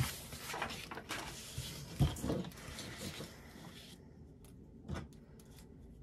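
Paper rustling and sliding as loose planner pages are lifted, shuffled and laid flat on a table, with a soft knock about two seconds in and another about five seconds in. The rustling stops after about four seconds.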